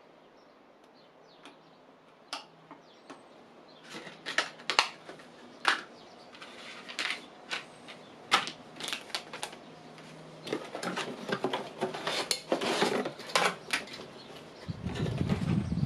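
Clicks and clatter of small hard PC hardware parts being handled on a desk. Sparse at first, busier from about four seconds in, with a stretch of scraping and rustling near the end.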